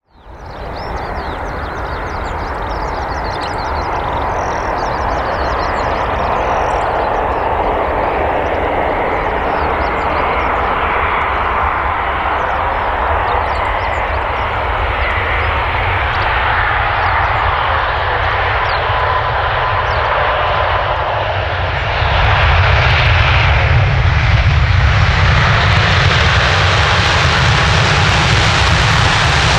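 Jet engines of a Boeing 787-8 airliner (Rolls-Royce Trent 1000 turbofans) during landing: a steady jet whine and rushing noise as it comes in over the runway and touches down on the wet surface. The low rumble grows louder about three-quarters of the way through.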